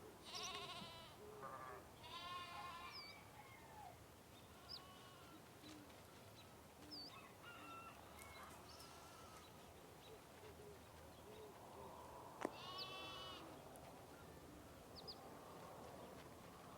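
Sheep bleating with a quavering voice: two bleats near the start and another about thirteen seconds in, with quieter bleats in between.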